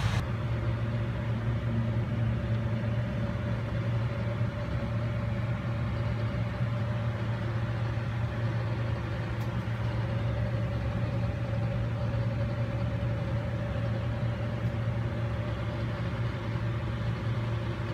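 A steady low machine hum with a fainter higher tone above it, unchanging throughout, as of a motor or fan running.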